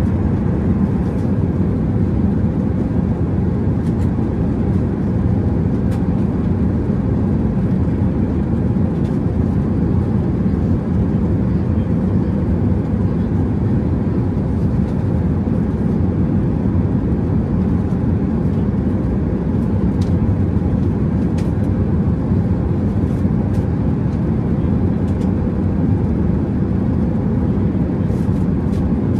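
Airbus A380 cabin noise in flight: a steady, loud low rumble of airflow and engines, with faint light ticks now and then.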